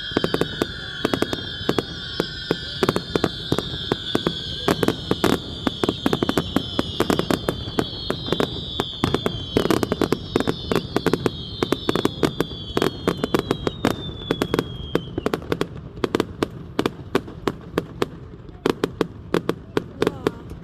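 Fireworks going off in rapid crackling bangs, with high whistling tones that slowly fall in pitch and die away about fifteen seconds in.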